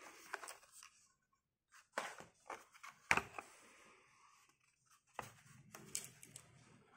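A Hot Wheels blister pack, a plastic bubble on a cardboard card, being handled and turned over in the hands, giving scattered crinkles and clicks, the sharpest about three seconds in.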